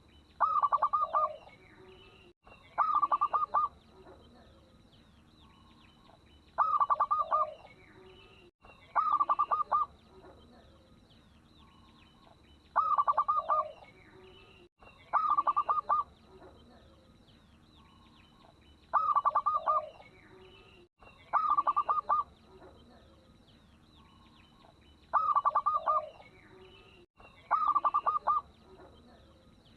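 Zebra dove (local perkutut) cooing: short phrases of rapid staccato notes, each about a second long, in pairs that repeat about every six seconds.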